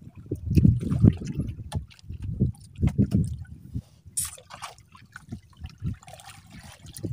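Sea water sloshing and splashing around a small boat in uneven bursts, with a short hiss about four seconds in.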